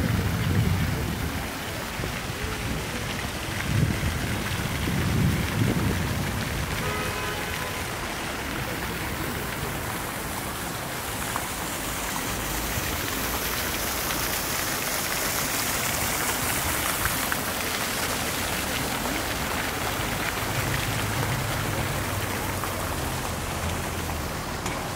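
Fountain jets splashing into a shallow pool: a steady hiss of falling water. Low gusts of wind buffet the microphone in the first few seconds.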